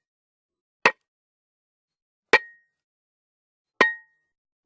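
Three short, sharp clicks about a second and a half apart, each with a brief high ring, with dead silence between them.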